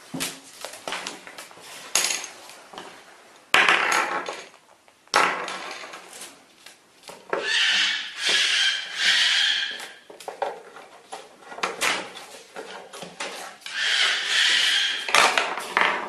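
Irregular clicks, taps and knocks of hard objects as a Goffin's cockatoo handles a wooden stick and works at a wooden and clear-acrylic puzzle box, with a few longer rustling stretches about four, eight and fourteen seconds in.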